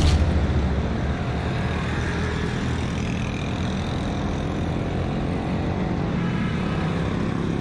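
Busy road traffic of cars, motorcycles and rickshaws running past, a steady rumble that is heaviest in the first second and then eases a little.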